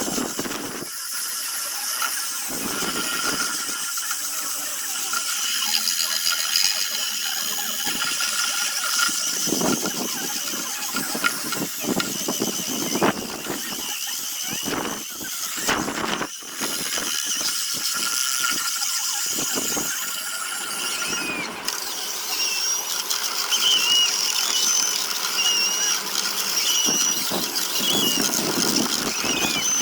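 Power sanding tool grinding a zelkova root carving, a steady high-pitched whine with wavering squeals as the abrasive works the wood.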